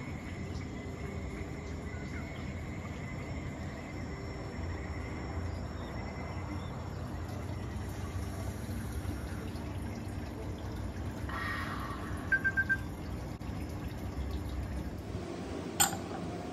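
Steady low background rumble, with three short high beeps a little past the middle and a single sharp clink of a porcelain gaiwan lid near the end.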